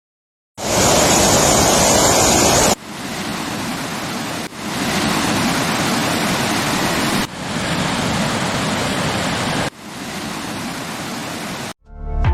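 Rushing water of waterfalls, a steady noise heard as a run of separate clips, starting after a moment of silence. Level and tone change abruptly at each cut, about every two to three seconds; the first clip is the loudest and brightest.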